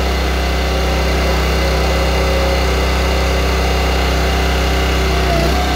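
The NorthStar 37-ton log splitter's small gas engine runs steadily under hydraulic load while its wedge is driven along the beam. The engine note sags briefly near the end.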